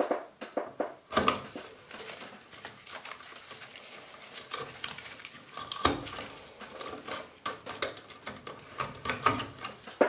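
Irregular small clicks, ticks and rustles of gloved hands handling electrical wire and fitting it into small wire connectors in a plastic junction box, with sharper ticks about a second in and near six seconds.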